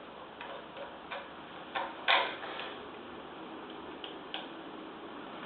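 Irregular light clicks and metallic knocks from hand tools and parts while a two-piston air compressor's cylinder head is being taken off, with one sharper knock about two seconds in.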